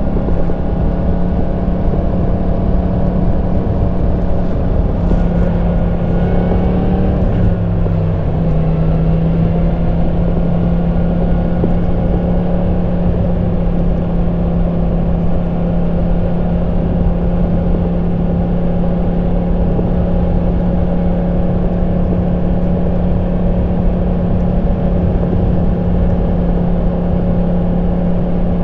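Yamaha MT-10 SP's 998 cc crossplane inline-four, on its stock exhaust, running at a steady cruising engine note with wind and road rumble. About seven seconds in the pitch dips briefly and settles again, as with a small throttle change.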